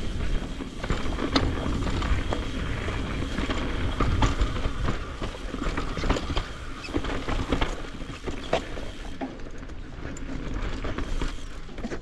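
Mountain bike riding fast down a dirt trail: the tyres rolling over dirt and rocks, with frequent sharp clicks and rattles from the bike and a low wind rumble on the microphone.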